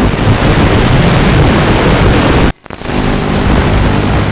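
Walkera F210 racing quadcopter in flight, heard over its analog FPV feed: a loud hiss with a low steady motor hum under it, cutting out abruptly for a moment about two and a half seconds in.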